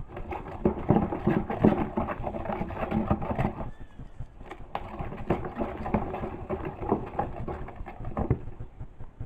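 Spoon stirring palm oil in a bowl, with an irregular run of clicks and scrapes against the bowl.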